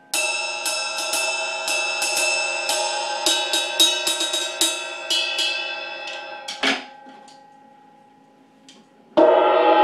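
A 1970s hollow-logo Avedis Zildjian 22-inch ride cymbal, a heavy one at 3958 grams, played with the wooden tip of a drumstick: a run of ride strokes for about six seconds over a steady ringing wash. A harder hit follows, and its ring dies away. Just after nine seconds a loud new strike comes from a mallet.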